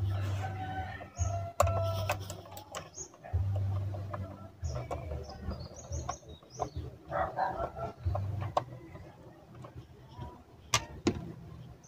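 Scattered clicks and knocks of plastic and metal parts as a blender's opened base and its switch are handled and worked loose, with birds chirping in the background.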